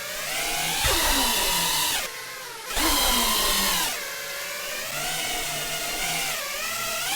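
FPV drone's electric motors and propellers whining, the pitch rising and falling with throttle changes, with two louder rushing surges about one and three seconds in.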